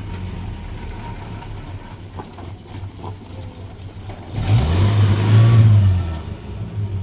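Car engine running steadily at idle, then revved hard about four and a half seconds in for about a second and a half before settling back.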